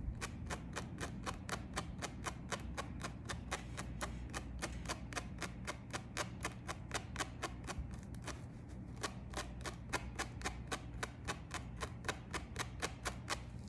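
Tweezers clicking rapidly and steadily, about four or five small sharp clicks a second, as hairs are plucked from a wig's lace frontal, over a low steady hum.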